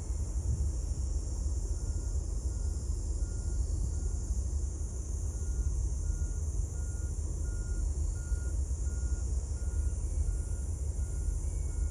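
Steady low rumble with a faint electronic beep repeating evenly, about three beeps every two seconds, from about two seconds in.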